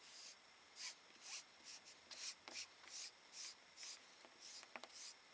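A Distress Ink pad swiped back and forth across textured linen card, faint short strokes about two a second.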